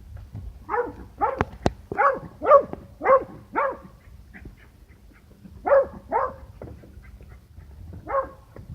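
A small dog barking: a quick run of six short barks, then a pair, then one more near the end.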